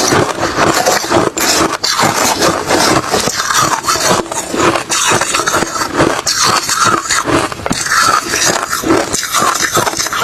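Refrozen crushed ice and shaved ice being bitten and chewed close to the microphone, a dense run of irregular crunches.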